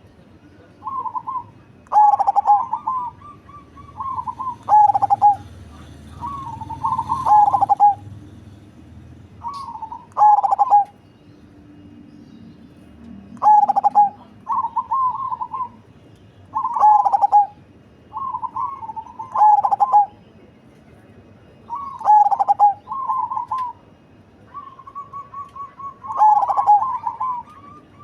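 Perkutut cemani, a black zebra dove, cooing in deep repeated phrases of about a second each, every second or two, with now and then one long held note.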